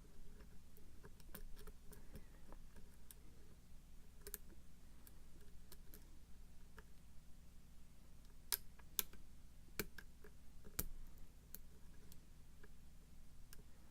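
Lock pick and tension wrench working a pin-tumbler lock through its warded keyway: scattered light metallic clicks of the pick and pins, with a few sharper clicks about eight to eleven seconds in.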